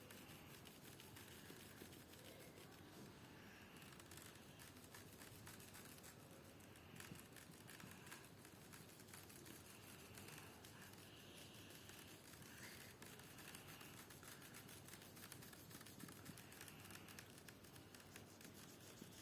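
Faint, intermittent scratching of a felt-tip marker colouring on paper.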